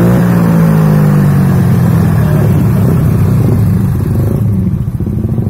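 Yamaha scooter's single-cylinder four-stroke engine running through a ROB1 aftermarket stainless exhaust. The revs ease down over the first few seconds, then settle into a lower, uneven idle.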